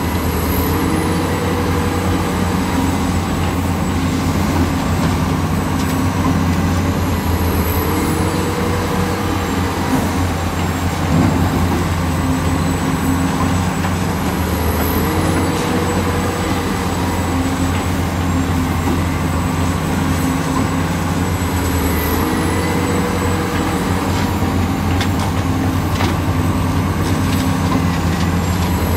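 Hitachi excavator's diesel engine running steadily while it digs, with a short rising whine that comes back about every seven seconds as the work cycle repeats.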